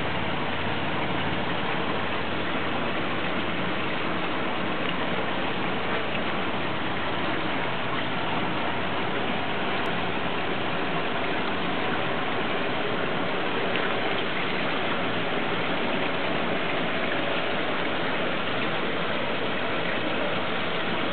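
Steady rushing and splashing of aquarium water circulation, the filter and aeration running without a break.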